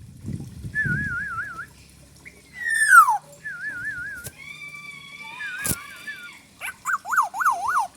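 Black-naped oriole (kepodang) singing a varied song of clear whistles: a loud falling slurred whistle about two and a half seconds in, three wavering warbled phrases, and a fast up-and-down trill near the end. Two sharp clicks fall in the middle.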